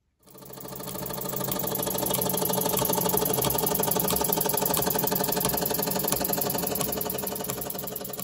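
Model steam engine running steadily: a rapid, even beat over a hiss of steam. It fades in over the first second or so and starts to fade near the end.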